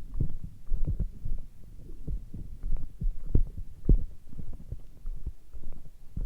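Irregular low thumps and rumbling on the microphone, several a second, while hiking on foot.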